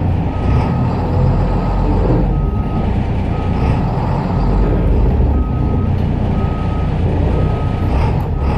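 Blue Bird school bus reversing: its backup alarm gives a steady high beep about once a second over the low rumble of its diesel engine.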